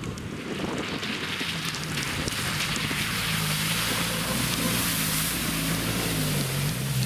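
Suzuki Vitara's engine running under load, its pitch rising and falling in steps and dipping near the end, as the SUV ploughs through slush and meltwater with a steady hiss of spraying water and slush.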